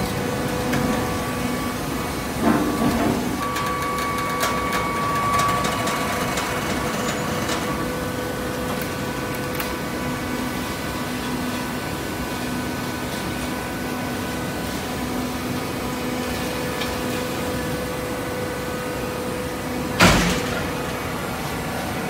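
Fully automatic horizontal baler running, its hydraulic power unit giving a steady hum with a held whine. There is a knock about two and a half seconds in and a loud bang near the end.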